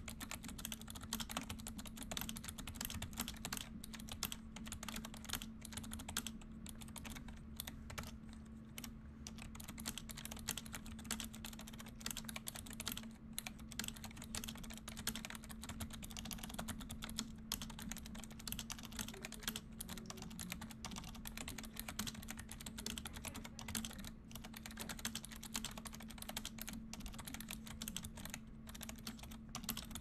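Razer Ornata V2 mecha-membrane keyboard being typed on fast and continuously: a dense stream of key clicks, broken by brief pauses now and then.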